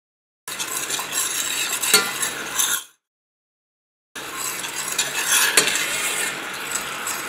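Metal spoon stirring a thin soy and oyster sauce mixture in a stainless steel pan, scraping and clinking against the pan's base and sides. It comes in two stretches of a few seconds each with a dead-silent gap between, and a sharper clink in each.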